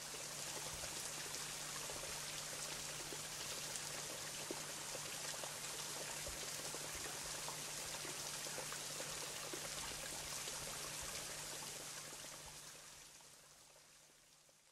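Running water, a steady rush with many fine drips and splashes, fading out over the last few seconds. A faint low steady tone runs beneath it.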